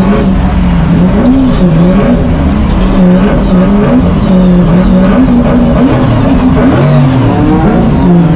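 BMW E30 drift car's engine revving up and down repeatedly under hard throttle, heard from inside the cabin while the car drifts.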